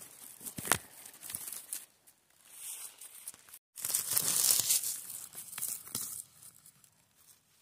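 Close rustling and crackling of dry twigs, moss and leaves on a forest floor as hands part the undergrowth right by the microphone. There is a brief gap a little past halfway, then a louder stretch of rustling.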